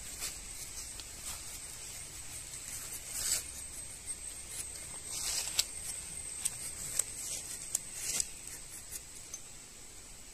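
Rubber-tapping knife shaving a thin strip of bark along the tapping cut of a rubber tree: short scraping, tearing strokes with small clicks. The strokes are loudest a little over three seconds in and again from about five to eight seconds in.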